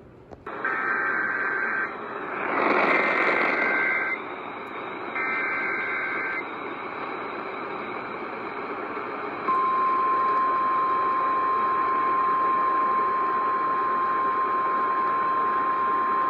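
Emergency Alert System weather alert coming in over a hissing radio receiver: three short bursts of the warbling two-pitch SAME header data tones, about a second apart, then the steady single-pitch warning alarm tone, which starts about nine and a half seconds in and holds. This sequence opens a new National Weather Service warning.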